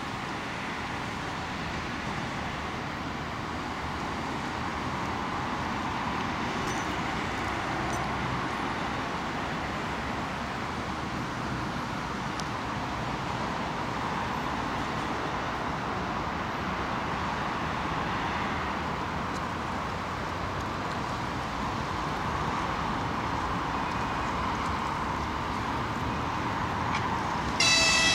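2TE116U two-section diesel locomotive hauling a freight train, its diesel engines running steadily and slowly growing louder as it approaches. Its horn sounds near the end.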